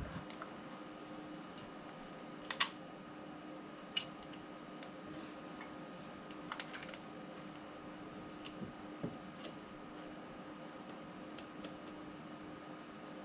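Small metal clicks and taps, a dozen or so spread irregularly, as the linkage and small parts of a Rochester carburetor are handled and fitted by hand; the loudest is a quick double click about two and a half seconds in. A faint steady hum lies under it.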